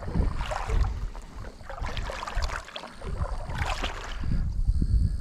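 Irregular water splashing and knocking around a small boat, with a steady low rumble of wind on the microphone.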